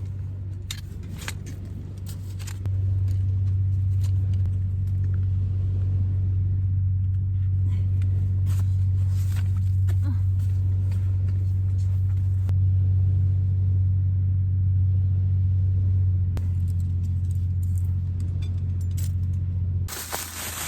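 Steady low drone of a car on the move, as heard from inside it, with scattered small clicks and rattles. It gets louder about three seconds in and cuts off suddenly just before the end.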